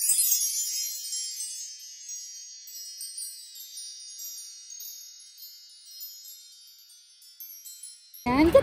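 A wind-chime sound effect: a cluster of high chime tones rings out suddenly, then more chimes tinkle in at scattered moments while the whole slowly fades away over about eight seconds.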